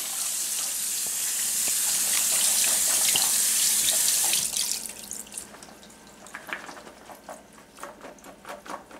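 Kitchen faucet running cold water over frozen mixed vegetables in the sink, a steady hiss that is shut off about halfway through. Scattered light clicks and knocks follow.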